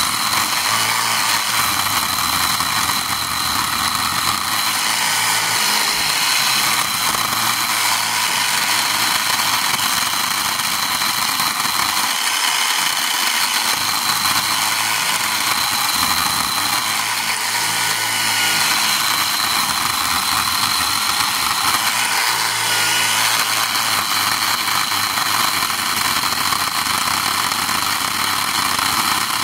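Craftsman V20 10-inch battery chainsaw running steadily, its chain cutting into a tough hardwood stump without being pressed down.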